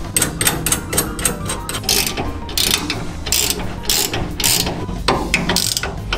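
Hand ratchet wrench clicking in repeated back-and-forth strokes, running down the U-bolt nuts that clamp a lowering block onto a leaf spring.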